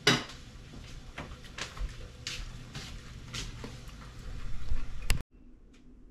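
Sliced cabbage and carrots simmering in butter and a little water in a covered skillet, a steady hiss with scattered pops and crackles. The sound stops abruptly about five seconds in, leaving quiet room tone.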